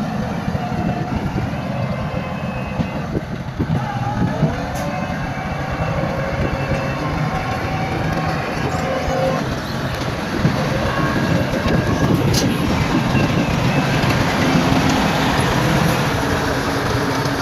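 Crawler bulldozer's diesel engine running steadily under load, with the clanking and squealing of its steel tracks.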